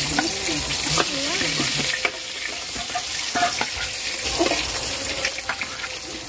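Battered chicken pieces deep-frying in hot oil in a wok, a steady sizzle and bubbling, with a few metal clicks of a slotted spoon against the pan as fried pieces are lifted out.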